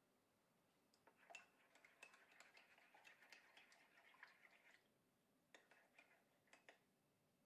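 Faint, rapid small clinks and scraping of a spoon stirring in a ceramic mug of water, running for about four seconds, followed by a few separate clicks near the end.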